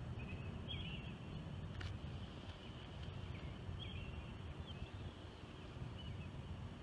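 Outdoor night ambience: a steady low rumble with faint, scattered short chirps of small birds.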